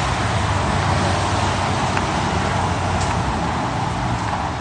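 Steady road traffic noise from passing cars and engines, a continuous rumble and hiss with no sudden events.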